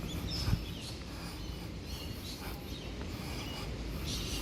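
Birds chirping in short, scattered calls over a steady low background rumble, with a brief knock about half a second in.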